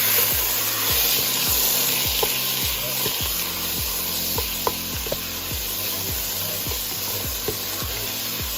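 Chicken pieces frying in hot oil in a pan, a steady sizzle, with a few light clicks of a utensil as the chicken is checked and moved.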